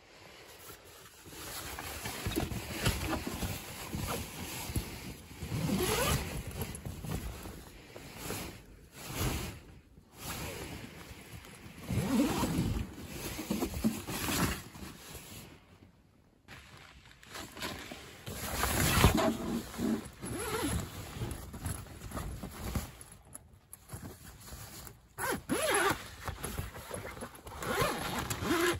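Tent fabric rustling and crinkling in irregular bursts as the tent door is handled and a zipper is pulled.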